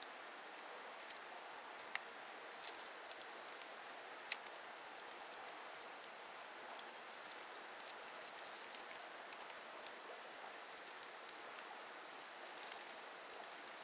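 Faint outdoor background hiss with scattered small ticks and crackles, like light pattering.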